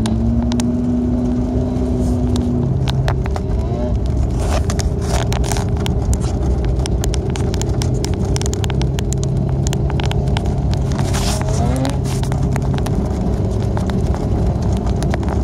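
Steady car engine and tyre noise heard from inside the cabin, driving on a snow-packed road. A run of sharp clicks and crackles comes through the middle.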